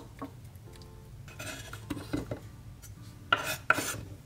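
Kitchen knife scraping diced cucumber off a wooden cutting board into a ceramic bowl: a few short scrapes and knocks, the loudest near the end.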